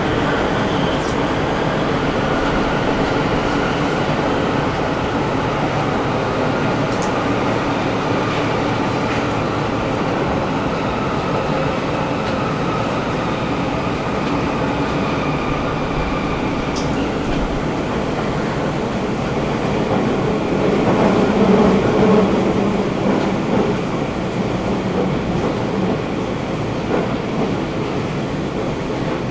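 Sendai City Subway 1000 series train running through a tunnel, heard from inside the car: a steady rumble of wheels and running gear with the air conditioning on. A faint high whine fades out around the middle, and the rumble swells louder about two-thirds of the way through.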